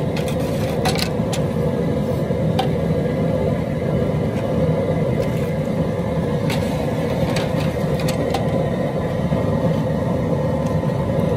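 Outdoor propane cooker burner running steadily under a large aluminium boiling pot. A few light knocks come from the long metal stirring paddle against the pot's strainer basket.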